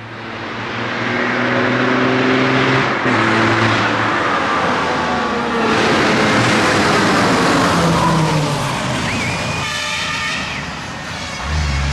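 Dakar race truck's engine pulling hard up a hill climb toward and past the listener, with its note changing twice on the way. It is loudest about six to eight seconds in, then drops in pitch and fades as the truck goes by.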